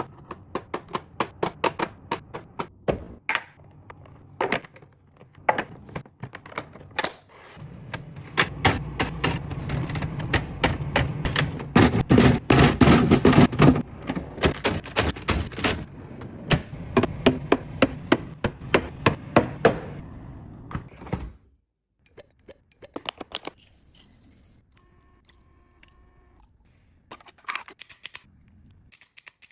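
Plastic and glass containers and packaging being handled and set down while a fridge is restocked: a fast run of taps, clicks and thunks. It grows denser and louder about halfway through, then thins to a few scattered clicks near the end.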